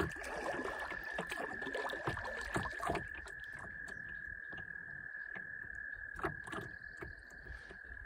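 Kayak paddling: paddle strokes splashing and water sloshing, busier in the first three seconds and then quieter, with scattered small splashes and knocks. A steady high trill runs under it throughout.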